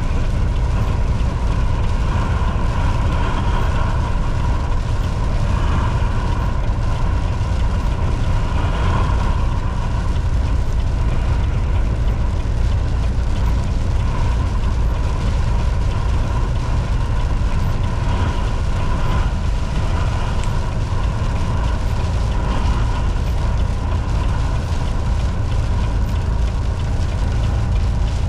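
Volvo VNL 760 semi truck cruising at highway speed: a steady engine drone and road rumble with a hum that swells slightly now and then.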